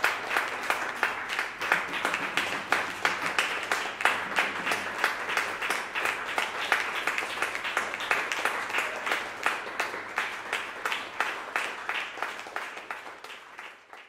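Audience applauding: many hands clapping steadily, the applause dying down over the last couple of seconds.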